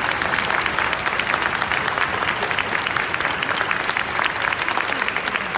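Concert audience applauding steadily, a dense mass of many people clapping.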